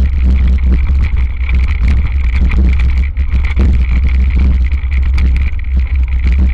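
Wind buffeting a camera on the handlebars of a hardtail mountain bike riding down a rough, leaf-covered dirt trail, with the bike rattling and clattering over bumps.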